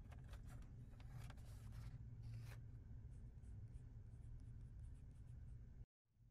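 Faint rustling and scratching of wool suiting cloth being handled and slid on a wooden tabletop, a cluster of short scrapes in the first couple of seconds and lighter ticks after, over a low steady room hum. The sound cuts off completely near the end.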